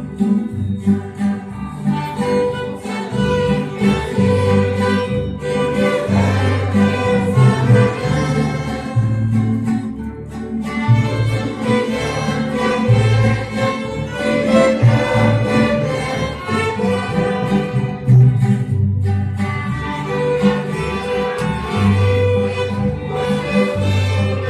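String ensemble of several violins carrying the melody over strummed guitars and a large bass guitar (guitarrón) playing a steady, rhythmic bass line.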